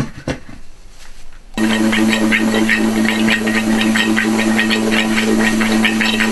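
Clear vacuum-chamber dome set down on its rim with a knock, then about a second and a half in a vacuum pump switches on and runs with a steady hum and a fast rattle, pulling a vacuum to degas silicone.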